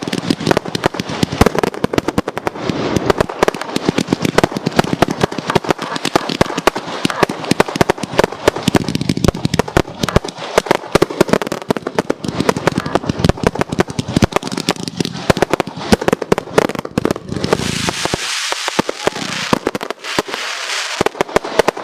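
Aerial firework shells fired in a dense barrage, many bangs and bursts a second overlapping. In the last few seconds the bangs thin out under a steady high hiss.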